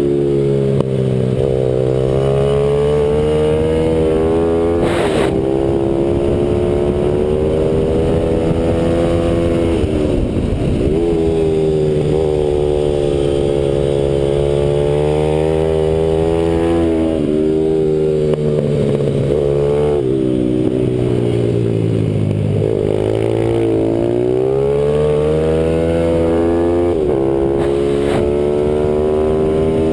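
Pit bike's single-cylinder four-stroke engine heard from on board at racing speed, revving up through the gears with short breaks at each shift. It drops away twice into deep low dips and climbs again, as the rider brakes for corners and accelerates out.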